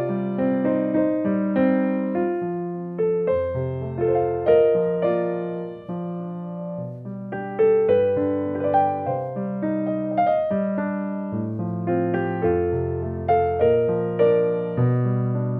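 Background piano music: a melody of struck notes over lower bass notes that change about once a second.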